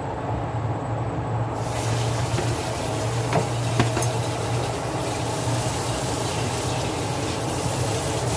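A kitchen tap is turned on about a second and a half in, and water runs steadily over the parboiled black chicken as it is rinsed. A few light knocks come around the middle.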